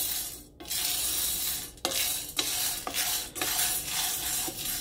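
Green coffee beans, early in a stovetop pan roast, being stirred in a small stainless steel frying pan: a dry rattling rush of beans sliding over the metal, which breaks off briefly about half a second in. A few light clinks of the utensil against the pan follow, between about two and three and a half seconds in.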